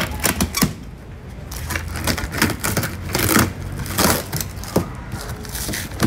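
A taped cardboard box being cut and pulled open by hand: irregular clicks, scrapes and rustles of cardboard, packing tape and paper.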